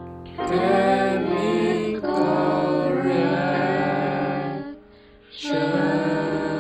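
Jingle music with singing: held sung notes in phrases over a backing, breaking off briefly about five seconds in before a last long note.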